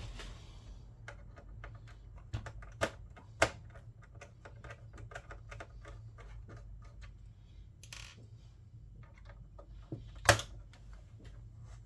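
Irregular small clicks and taps of a screwdriver and PlayStation 3 plastic and metal parts being handled during disassembly, with a few sharper knocks near the start and one near the end, over a steady low hum.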